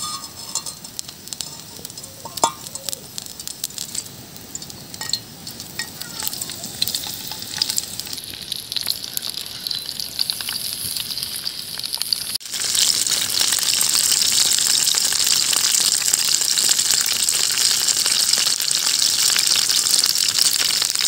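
Hot oil sizzling in a flat frying pan as banana-leaf-wrapped pomfret parcels fry in it, with scattered small crackles at first. About twelve seconds in it becomes a loud, steady sizzle.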